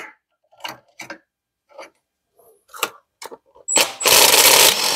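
Light metallic clicks and clinks of a socket and bolts being handled, then near the end about a second and a half of a Milwaukee 18V cordless impact driver hammering, backing out an intake manifold bolt.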